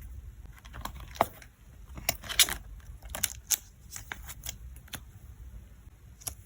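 Photocards and plastic sleeves being handled for packing: a series of sharp plastic clicks and short crinkles, busiest in the middle, with one more click near the end, over a low steady hum.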